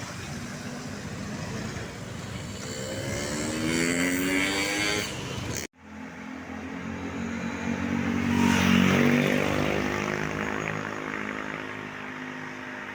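Road vehicle engines passing: one accelerates with a rising pitch, then, after a sudden cut, another passes close, loudest about nine seconds in and fading away.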